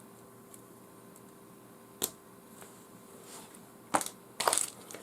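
Hands handling small fishing tackle: one sharp click about two seconds in, then a few louder clicks and rustles near the end, over a faint steady hum.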